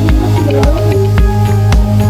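Background electronic music with a steady beat, a little under two beats a second, over a deep bass line.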